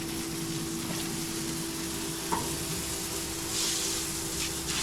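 Coolant spraying from a hose line fed by the mill's sump pump: a steady hiss over the pump's steady hum. There is a small click a little over two seconds in, and the spray briefly gets louder after about three and a half seconds.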